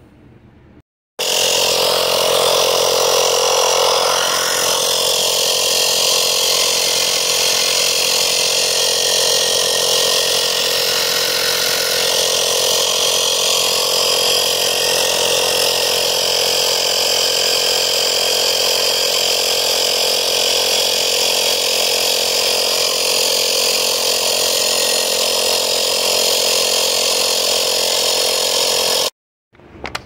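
Small portable air compressor running steadily with a loud buzz, most likely re-inflating the freshly plugged tyre. It starts abruptly about a second in and stops abruptly about a second before the end.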